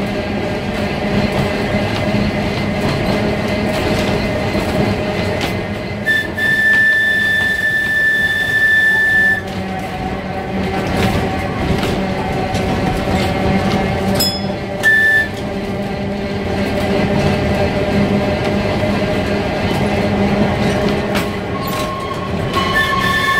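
Manx Electric Railway tram car running along the line, heard from inside its wooden saloon: a steady rumble of wheels and running gear with a low hum. A high-pitched wheel squeal sounds for about three seconds starting some six seconds in, again briefly around the middle, and once more near the end.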